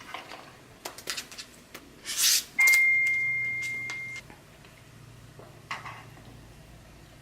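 Spoon clinking and scraping in a bowl of oatmeal, with one strike leaving a clear high ringing tone that fades over about a second and a half.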